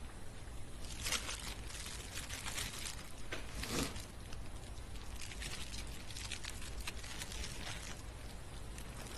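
A man eating a meal: chewing and biting into bread, with small irregular clicks of a fork against the food tray over a low steady hum.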